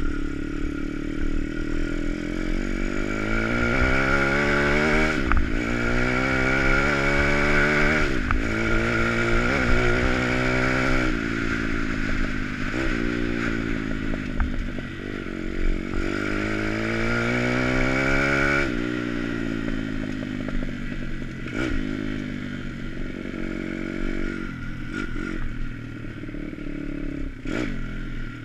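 Dirt bike engine accelerating through the gears, its pitch climbing and dropping back at each gear change several times, then running at a lower, steadier throttle over the second half. A few knocks and rattles from the bike crossing rough ground, with wind rumbling on the bike-mounted microphone.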